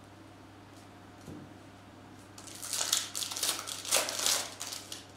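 Foil wrapper of a Topps Bundesliga trading card pack crinkling as it is torn open by hand, a dense crackle lasting about two seconds from around halfway through.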